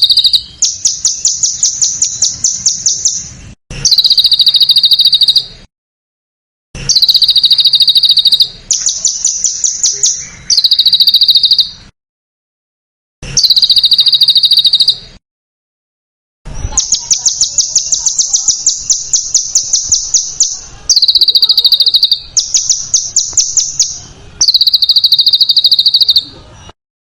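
Songbird song made of very fast, dense trills, each phrase switching between a lower and a higher pitched trill. The phrases last about two to four seconds with short gaps between them, and a longer run of about ten seconds comes in the second half.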